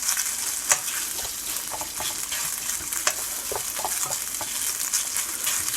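Egg fried rice sizzling in hot oil in a frying pan while it is stir-fried, with light scrapes and taps of the utensil against the pan.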